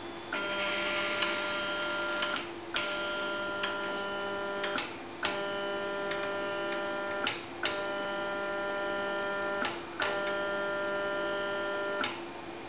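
3D printer stepper motors driving the X and Y axes while homing against newly fitted endstops: about five stretches of steady whine of roughly two seconds each, the pitch changing from stretch to stretch, with a sharp click at each start and stop. A low steady hum runs underneath.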